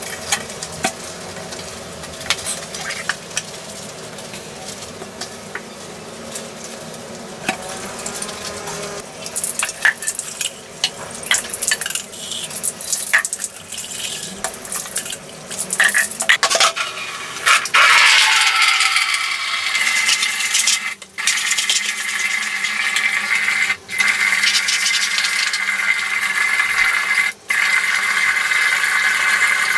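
Bathroom cleaning sounds: scrubbing and scraping with light clinks of plastic cleaner bottles against a ceramic sink. About halfway through, a steady hiss of running water takes over and carries on, with a few brief gaps.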